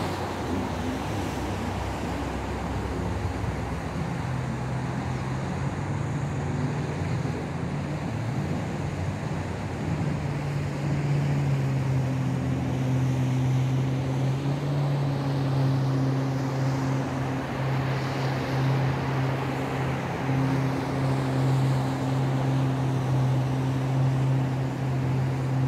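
An engine running steadily: a low, even drone that grows louder about ten seconds in, over wind noise on the microphone.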